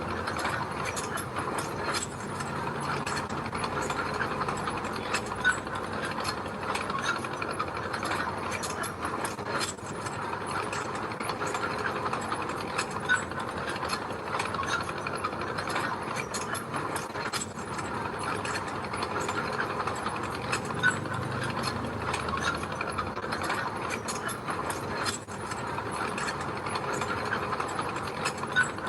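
Bulldozer at work: its steel crawler tracks clatter and squeak in a continuous rapid clicking, over the low running of its diesel engine, with a few sharper knocks.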